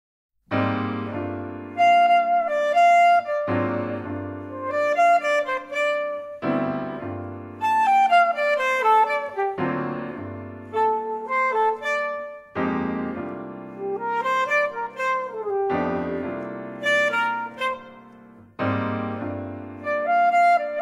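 Alto saxophone and piano playing a jazz-inflected chamber piece, the piano striking low bass chords about every three seconds beneath a moving melodic line.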